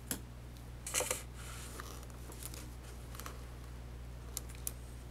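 Handling noise from a hand moving the notebook paper: a handful of light clicks and soft rustles, the loudest rustle about a second in, over a steady low electrical hum.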